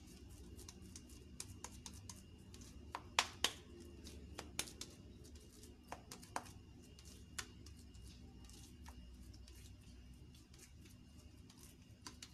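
Oiled hands patting and pressing a lump of raw minced chicken mixture into a patty, giving faint scattered wet slaps and clicks. A few louder ones come about three seconds in.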